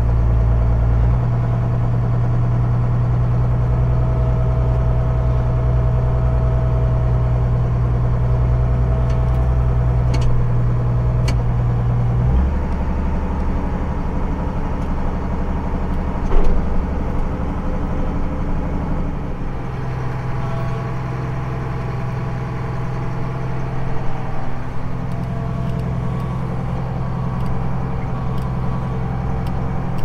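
Diesel tractor engine running steadily, heard from inside the cab, towing a loaded grain cart. Its note changes about twelve seconds in and again near twenty, and there is a brief knock partway through.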